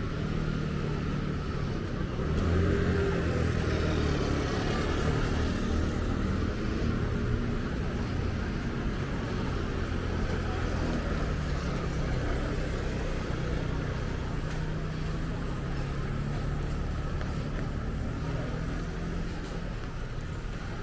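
A motor vehicle's engine running close by, with a steady low hum, loudest from about two to eight seconds in, over a constant hiss of rain on the street.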